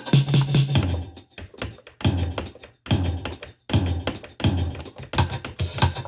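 Roland CR-1000 drum machine playing a rhythm pattern through effects: clicky electronic percussion hits over low, pitched bass-drum thuds, in short phrases separated by brief gaps.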